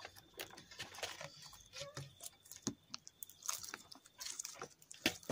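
Clear glitter slime, made from Elmer's clear glue and magical liquid activator, being kneaded and squeezed by hand in a plastic bowl: irregular sticky clicks and squishes, several a second.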